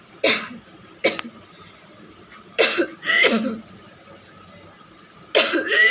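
A woman forcing coughs and retching sounds while trying to make herself vomit: two short coughs about a second apart near the start, then longer, strained gagging bursts around the middle and again near the end.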